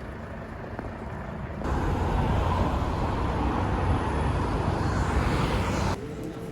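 Outdoor background noise, a steady rumble and hiss like traffic, stepping up suddenly to a louder level about a second and a half in and cutting off abruptly near the end.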